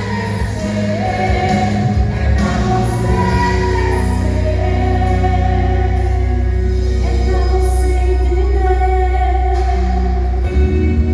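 Group of worshippers singing a Christian worship song with a female voice prominent, over steady amplified accompaniment with strong bass.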